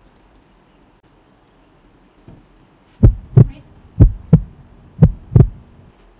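Heartbeat as heard through a stethoscope: three double thumps (lub-dub), about one a second, starting about halfway in.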